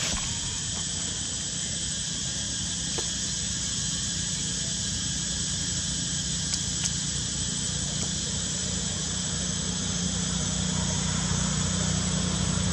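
Steady background noise: an even high-pitched hiss over a low engine hum that grows louder near the end, with a few faint clicks.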